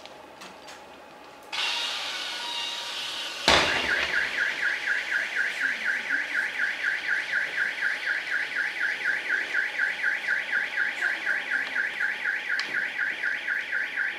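A hissing noise starts abruptly from the burning car, then a loud bang as part of it bursts. Straight after the bang a car alarm sounds, a fast, even warble of about four to five pulses a second.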